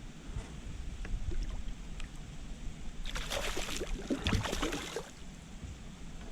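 A hooked largemouth bass splashing at the water's surface as it is brought to the boat, a noisy burst of splashing for about two seconds starting halfway in, over a low wind rumble on the microphone.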